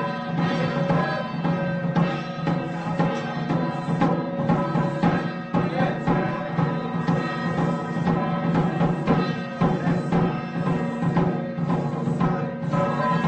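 Taiwanese temple festival music: sustained pitched tones over dense, continuous drum and percussion strikes.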